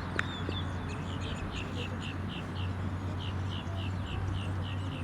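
A bird calling over and over, a short high chirp repeated about four times a second, starting a little over a second in.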